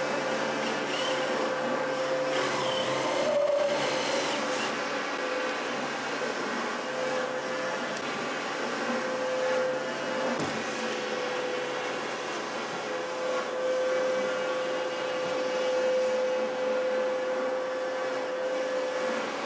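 A steady electric motor hum with a constant whine, unbroken throughout, with a brief wavering and a few clicks about three to four seconds in.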